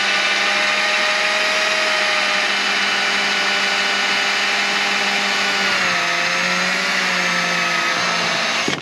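Electric drill running steadily, boring a small pilot hole into a boat's fiberglass. Its pitch drops a little about six seconds in, and the motor stops right at the end.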